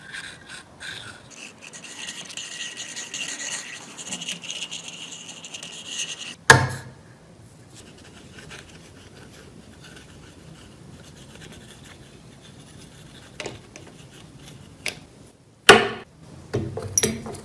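Hand scraping and rubbing, with a loud sharp knock about six and a half seconds in and two more knocks near the end.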